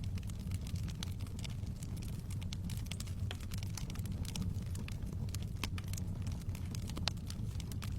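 Wood bonfire crackling, with irregular sharp pops and snaps scattered throughout over a steady low rumble.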